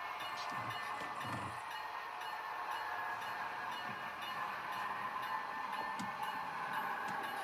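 Steady running sound from a model locomotive's onboard sound system, with two soft low thumps about half a second and a second and a half in and a single sharp click near the end.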